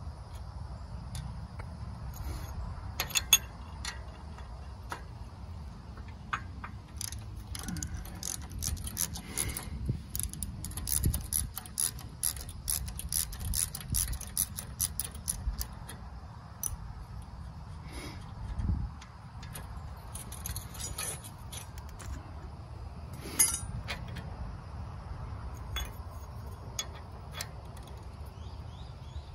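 Steel sickle-mower knife sections and their bolts handled on the cutter bar: a run of small metallic clicks and clinks, thickest through the middle, with a sharper clink a few seconds in and another near the end, over a low steady rumble.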